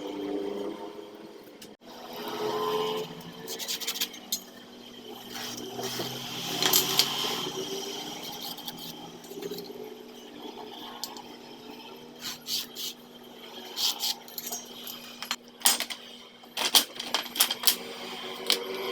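Hand-work noise: scattered clicks, taps and knocks with some rubbing, busiest in the second half.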